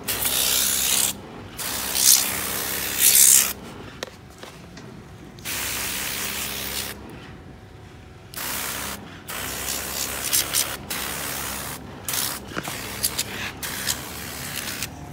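Pressure-washer jet spraying water onto a 1/14-scale RC excavator, a loud hiss that starts and stops several times as the trigger is squeezed and let go.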